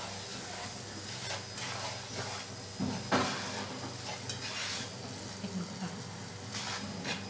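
Amaranth (rajgira) flour sizzling in hot ghee in a nonstick frying pan as it is stirred and roasted, with the soft scrape of a plastic spatula in repeated, irregular strokes.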